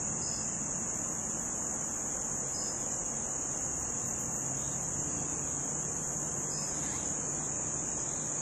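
Continuous high-pitched insect chorus, an unbroken shrill drone.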